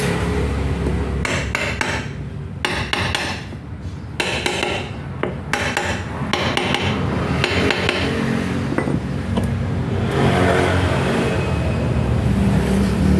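Irregular metallic knocks and clicks of hand-tool work on the parts of a Makita HM1306 demolition hammer under repair, over a steady low hum.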